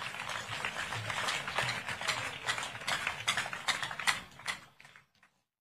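Crowd applauding, a dense patter of many hands clapping at once that builds and then dies away about four and a half seconds in.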